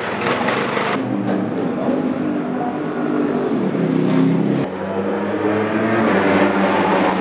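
BMW S1000RR superbike's inline-four race engine running through its Akrapovic exhaust, its pitch rising and falling as it is revved. The sound changes abruptly about a second in and again a little past the middle.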